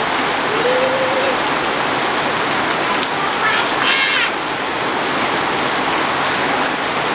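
Heavy rain falling steadily, with a faint short tone about a second in and a brief high-pitched sound about four seconds in.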